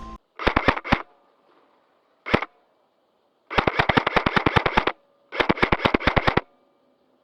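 Airsoft gun firing: two short bursts, a single shot about two seconds in, then two longer full-auto bursts at about a dozen shots a second.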